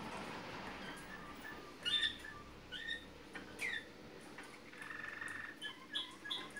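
Malinois (Waterslager) song canaries calling in short phrases: scattered quick chirps, a falling whistled note about three and a half seconds in, and a rapid rolling trill around five seconds.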